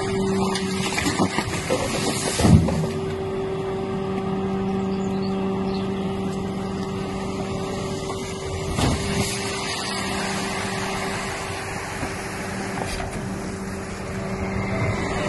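Rear-loader garbage truck's packer running, the engine and hydraulics giving a steady hum while the compactor blade sweeps down onto inflatable vinyl toys in the hopper. A sharp loud knock comes about two and a half seconds in, and a smaller one near nine seconds.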